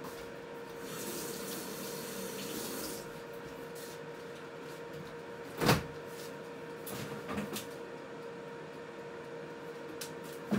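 Kitchen sounds over a steady appliance hum: a brief rush of running water about a second in, then a single sharp knock midway and a few softer knocks soon after.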